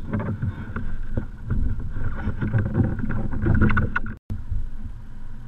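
Wind buffeting a kayak-mounted GoPro microphone, with water sloshing against the kayak's plastic hull and scattered knocks from the paddler moving and handling gear. The sound cuts out for a moment about four seconds in.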